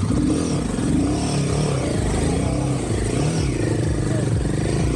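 Royal Enfield Himalayan 450's single-cylinder engine revving, its pitch rising and falling several times.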